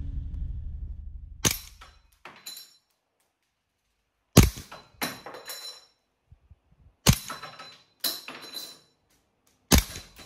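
GHK Glock 17 Gen3 gas blowback airsoft pistol with a steel slide firing four single shots about two and a half seconds apart. Each shot is a sharp pop of gas and slide recoil, followed by a few lighter clacks.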